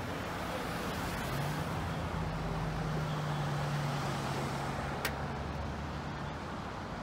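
A car driving along a road, heard from inside the cabin: steady engine and tyre noise with a low, even hum through most of it, and a single sharp click about five seconds in.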